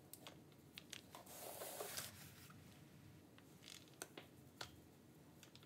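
Faint rasp of a small paint roller rolling wet paint over a rough cast vise body, for under a second about a second in, with a few light clicks and taps of the roller frame and handling.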